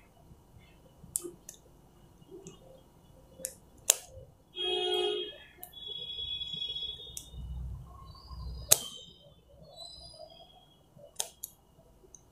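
Hand wire cutter clicking sharply as it snips at wires, several separate snips with the loudest a little past the middle. A short pitched call and a few high chirps sound around the middle.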